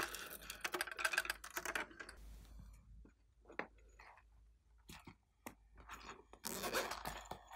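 Fingers clicking and tapping on a hard plastic toy palette case: a quick run of small clicks for about two seconds, then scattered single taps. Near the end there is a short rustling squeeze as a soft foam squishy toy is pressed.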